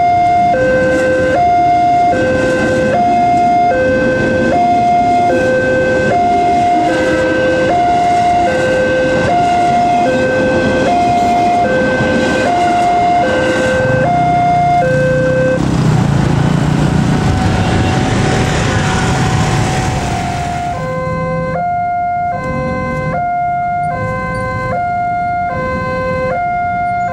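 Railway level-crossing electronic warning bell sounding a steady alternating two-tone ding-dong over and over. About halfway through, the alarm is drowned out for several seconds by a loud rushing noise with a low rumble. From about three-quarters of the way in, a similar two-tone alarm at a slightly different pitch is heard again.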